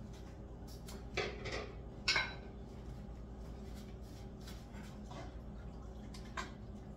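Kitchenware clatter: a few knocks and clinks of a bowl and a spoon against a cooking pot while ham pieces are added to fettuccine and stirred. The two loudest come about one and two seconds in, with fainter clinks later.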